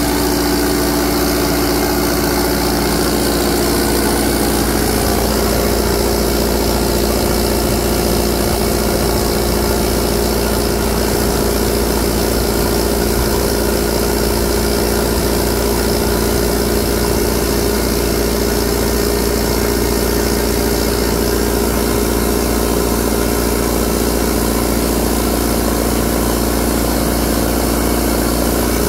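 John Deere 4039T four-cylinder turbo diesel driving a Kohler 50 kW generator, running steadily at governed speed with the generator's frequency meter near 60 Hz.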